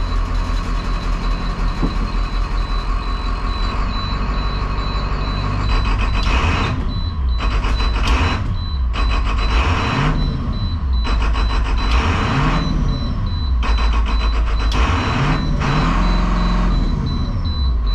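School bus diesel engine idling, then revved up and down several times, each rev swelling and falling back over a second or two. A thin, high, pulsing beep runs underneath.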